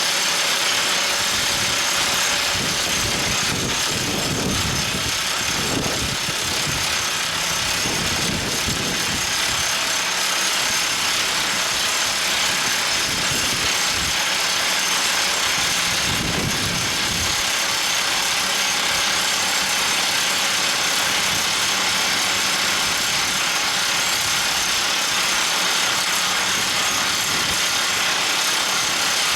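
Engine of an Everdigm ECD45E top hammer drill rig running steadily, with a few low rumbling swells.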